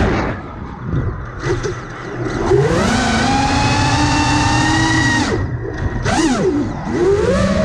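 Brushless motors and propellers of an iFlight Nazgul5 five-inch FPV quadcopter whining, the pitch rising and falling with the throttle. The whine drops away soon after the start, surges back up about two and a half seconds in and holds high, cuts back just after five seconds, blips briefly up and down, then climbs again near the end.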